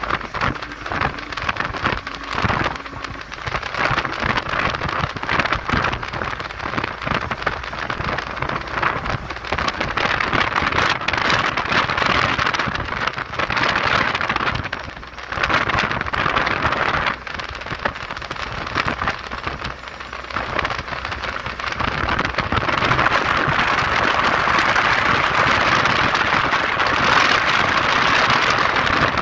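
Steady rushing road noise of a moving vehicle: wind and tyres on the road. It grows louder about two-thirds of the way through.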